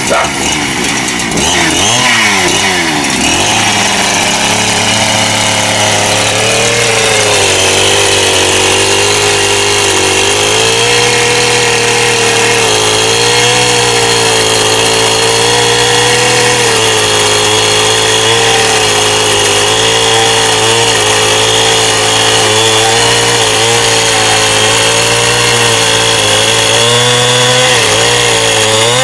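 Chainsaw with a freshly sharpened chain, revving in the first few seconds and then running steadily under load as it cuts firewood, its pitch dipping and recovering through the cut.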